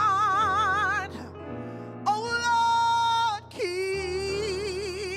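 Female gospel singer holding three long notes, the first and last with a wide vibrato and the middle one held steady, over sustained accompaniment chords.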